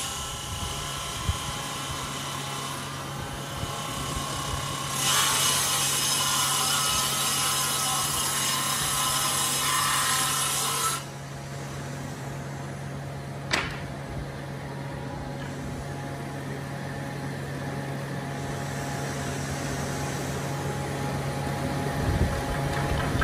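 Table saw running with a steady motor hum while its circular blade rips through a long wooden slab. The cut is loudest from about five seconds in and stops abruptly near the middle, after which the saw runs free, with one sharp click and some knocks of the slab being handled near the end.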